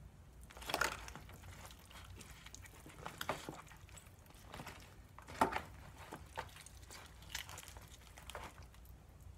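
Hands tearing meat off a rotisserie chicken carcass: soft wet pulling and squishing broken by a few short, irregular crackles and taps, the loudest about halfway through. A faint low hum sits underneath.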